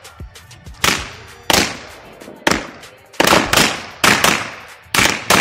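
Firecrackers packed inside a burning Dussehra Ravan effigy going off one after another, a row of sharp bangs with a quick cluster of them about three seconds in.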